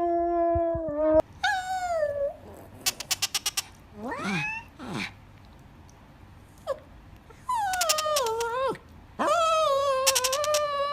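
A pet animal giving a series of long, drawn-out calls. One held call ends about a second in, rising calls come around four seconds, a falling call comes near eight seconds, and a long call comes near the end. Short runs of quick clicks fall between the calls.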